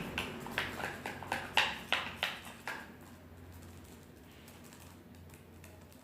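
A run of light, sharp taps and clicks, about a dozen in the first three seconds, as a small plastic pot of glitter is handled and tapped over the slime; then it goes quiet.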